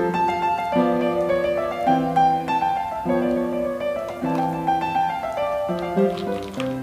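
Background piano music: a gentle melody over held chords that change about every second.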